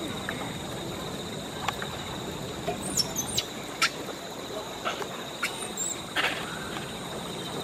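Outdoor ambience with a few short, high-pitched squeaky calls, about three seconds in, just before four seconds and again around six seconds, over a faint steady high whine.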